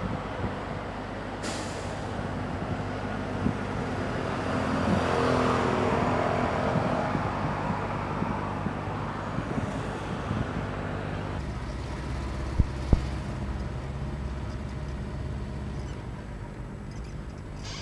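Car driving noise heard from inside the car: the engine runs steadily under tyre and road rumble. A rushing noise swells and then fades over a few seconds near the middle, and two short knocks come close together a little later.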